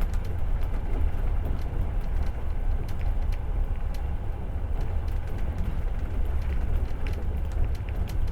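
Moving passenger train heard from inside the carriage: a steady low rumble of the wheels on the rails, with scattered light clicks and rattles.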